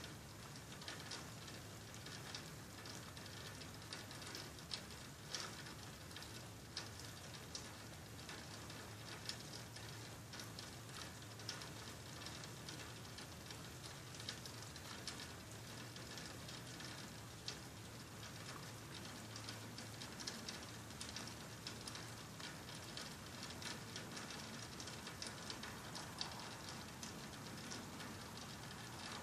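Rain falling steadily, with scattered drops ticking irregularly over a soft hiss.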